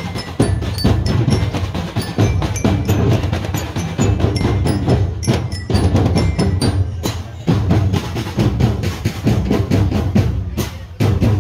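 A marching drum band playing a fast rhythm on snare and bass drums, with short bell-like notes ringing over the beat.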